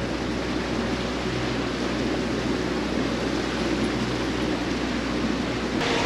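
Motorboat running steadily through floodwater: an even rush of water along the hull, with a low engine hum underneath.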